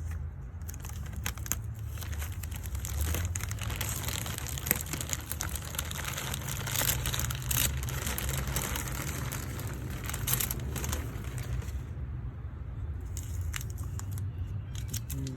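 Paper masking crinkling and crackling as it is pulled off and crumpled, with many small clicks. It eases off after about 12 seconds. A steady low hum runs underneath.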